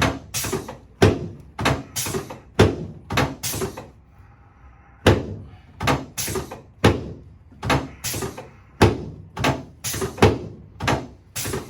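Chiropractic drop-table section slamming down again and again as the pelvic piece is thrust and reset, a run of sharp thuds about two a second, a pause about four seconds in, then another run.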